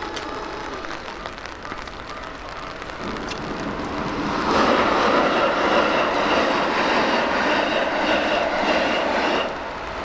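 A train passing through a level crossing: loud, even rumble and rush of wheels on rails that rises about four seconds in and cuts off sharply just before the end as the last car clears.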